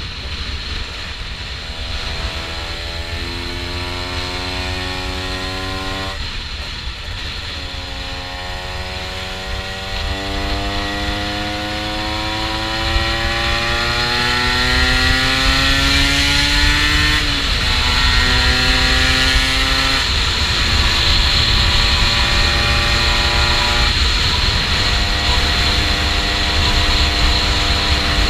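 Honda NSR 125's two-stroke single-cylinder engine pulling up through the gears, its pitch rising steadily in each gear. There are brief breaks for gear changes about six seconds in and again past the middle, then it runs at a steadier pitch. Low wind rumble on the microphone sits underneath.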